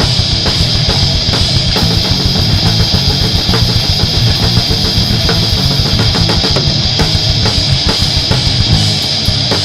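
Heavy metal band recording: fast drum kit with a constant cymbal wash over distorted guitar riffing, the bass drum dropping out briefly near the end.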